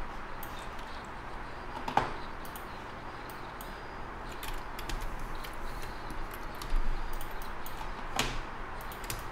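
A few sharp clicks from working at a computer, the loudest about two seconds in and again near the end, with smaller ones between, over a steady low hum.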